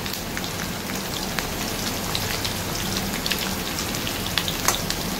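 Quartered boiled potatoes frying in hot oil in a kadhai, a steady sizzle with a dense patter of small pops; the potatoes are about three-quarters fried.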